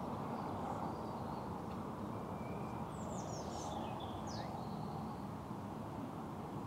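Steady outdoor wind rumble, with a few faint birds chirping high above it in the middle.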